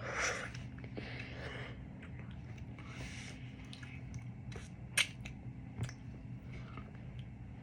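A person eating: mouth and chewing sounds with a few breathy exhales, and a few sharp clicks, the loudest about five seconds in.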